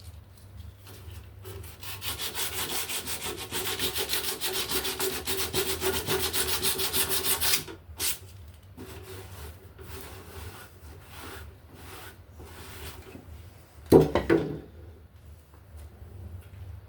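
Fast, even back-and-forth hand scrubbing strokes on parts of a spray paint gun, loud for about six seconds, then lighter and more broken. A single knock comes near the end.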